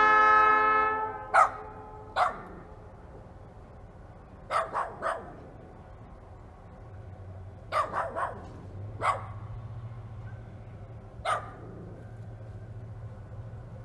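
A diesel locomotive's air horn ends about a second in. Then a dog barks about ten times, singly and in quick runs of three, while the low rumble of the locomotive's diesel engine grows from about halfway through.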